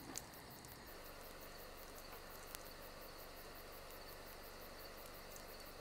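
Near silence: faint room tone with a soft, evenly repeating high ticking and a couple of tiny clicks.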